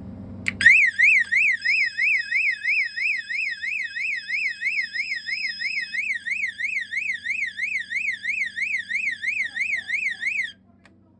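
Knockoff SpectrAlert Classic-style fire alarm sounding a fast sweeping tone that rises and falls about three times a second. A click comes just before it starts. It cuts off suddenly near the end.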